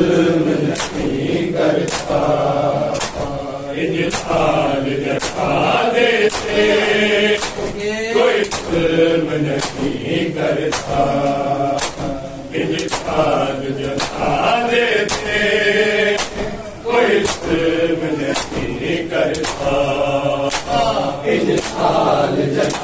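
Men's voices chanting a noha, a Shia mourning lament, with the even slap of hands on bare chests in matam keeping time about every three-quarters of a second.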